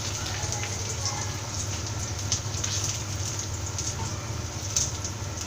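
Hot oil sizzling in a frying pan, with scattered crackling pops over a low steady hum.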